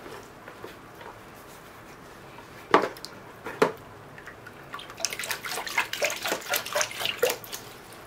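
Water sloshing and splashing in a bucket as a spruce's root ball is dunked and swished by hand to wash the soil out of the roots. Two single splashes come nearly three seconds in, then a run of quick splashes and drips fills most of the last three seconds.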